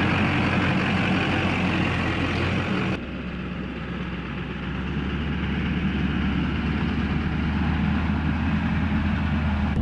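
Chevrolet 4x4 pickup truck's engine running steadily at low speed as the truck drives slowly, heard close at first. About three seconds in, the sound cuts to the truck heard from farther off, growing gradually louder.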